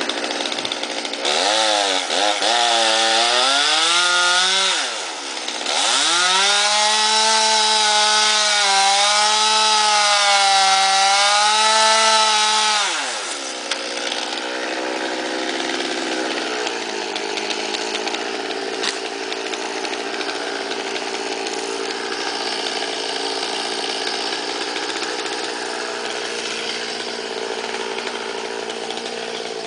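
Stihl chainsaw revving up and cutting into pine limb wood. A shorter burst comes about a second in, then a long run at full throttle of about seven seconds with the pitch wavering under load, before the saw drops back to a lower, steady running for the rest.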